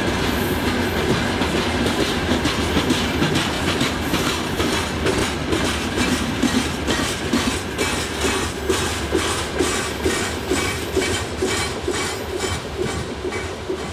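Gondola wagons of a freight train rolling past, with a steady rumble and a regular clickety-clack as the wheelsets strike the rail joints. The sound eases slightly near the end.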